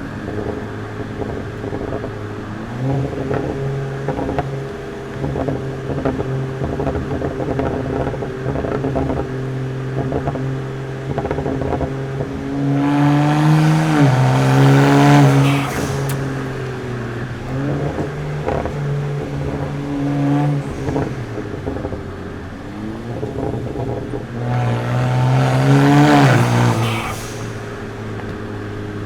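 BMW 335i's Stage 2 tuned N54 twin-turbo straight-six running at moderate throttle, then pulling hard twice, about 13 and 25 seconds in. Each time the engine grows louder and rises in pitch, then drops suddenly at an upshift.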